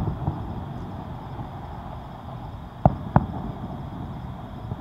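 Aerial firework shells bursting: a sharp bang right at the start and a pair of bangs about three seconds in, over steady background noise.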